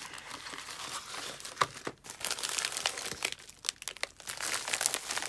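Thin plastic packaging bags crinkling and rustling as they are handled and opened, with a few sharp crackles.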